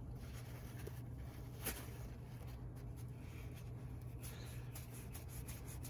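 Faint rubbing and scratching of a paper towel wiping thick, gummy grease off a model locomotive's small gears, over a low steady hum. There is one light click about a second and a half in.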